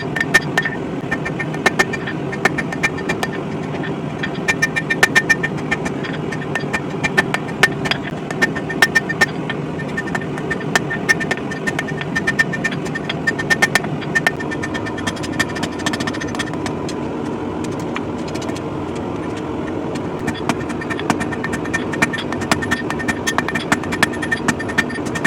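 Hammer striking steel on an anvil in irregular runs of blows, each strike ringing, over a steady low roar.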